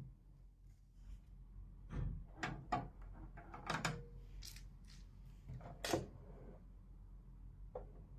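Scattered light clicks and knocks from handling a small steel gun case, its lid, inner lock box and contents, about half a dozen separate taps with quiet between.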